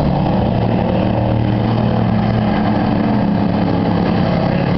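Engines of several pickup trucks racing on a dirt oval track: a steady mix of engine notes that rise and fall as the trucks lap.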